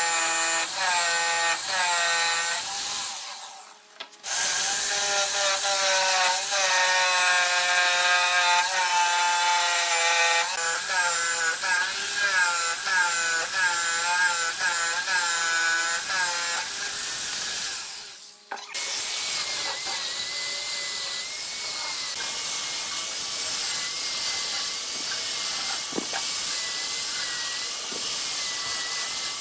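Makita electric jigsaw cutting wood, its motor whine dipping in pitch again and again as the blade bites, with a short stop about 4 s in. About two-thirds of the way through it stops and an angle grinder with a sanding disc takes over, running steadily as it sands the wood.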